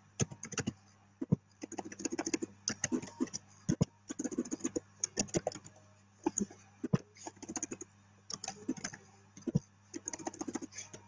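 Typing on a laptop keyboard close to the microphone: irregular runs of quick keystrokes with short pauses between them, over a faint steady low hum.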